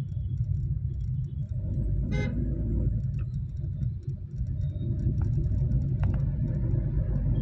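Low rumble of a car driving in city traffic, heard from inside the cabin, with a short vehicle horn toot about two seconds in.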